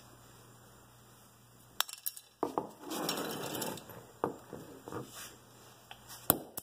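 Hammer striking a metal fidget spinner on a concrete floor: a cluster of sharp metallic clinks and knocks about two seconds in, another strike around four seconds in, and two loud strikes near the end.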